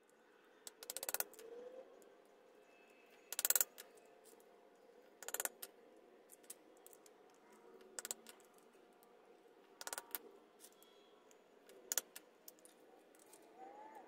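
Light metallic clicks and taps in short clusters about every two seconds, from a hand punch working the soft aluminium rivets out of a transmission gear selector switch.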